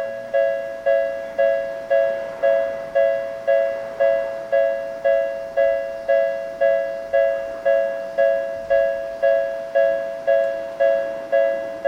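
Japanese railway level-crossing warning bell of the newer Tokyu type, an electronic two-tone 'kan-kan' strike repeating evenly about twice a second, each strike ringing and fading.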